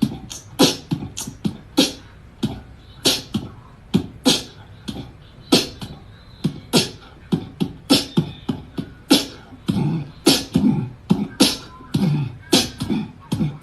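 A rapid, uneven series of short, sharp knocks, about two a second, some with a low thud under them.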